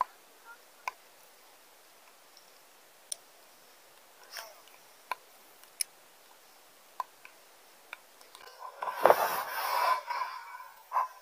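Handling noise close to the microphone: a few faint, sharp clicks scattered through quiet air, then a loud rustling, scraping burst about eight and a half seconds in that lasts about two seconds.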